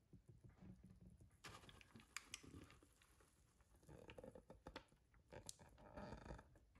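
Faint, irregular wet plops and soft clicks of thick banana bread batter being poured from a glass bowl into a parchment-lined loaf tin.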